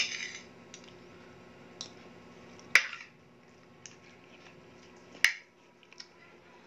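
Metal spoon and fork clinking against a ceramic plate while eating: two sharp clinks, one just under three seconds in and another about two and a half seconds later, with fainter ticks in between.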